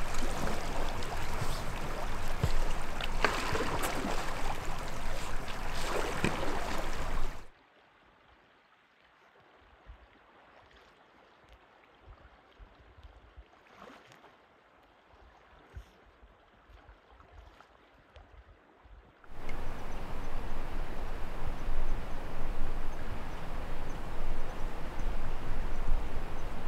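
Shallow river water rushing and splashing around an inflatable raft as it is dragged through the current. About seven seconds in it cuts to near quiet with a few faint splashes of a paddle on calm water. A steady rushing noise starts again past the middle.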